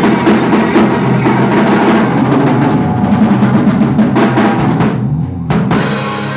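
Live rock band playing with the drum kit to the fore, busy drum fills on snare and bass drum. About five seconds in the sound briefly drops out, then a loud cymbal crash hits near the end, like the song's closing hits.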